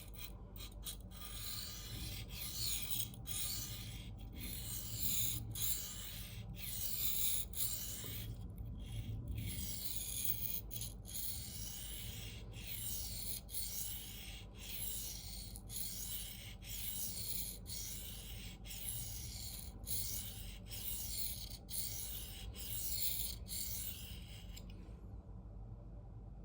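Steel knife blade scraping in repeated strokes across a 1200-grit diamond sharpening plate, a rough rasping hiss broken by short pauses between strokes. The scraping stops shortly before the end.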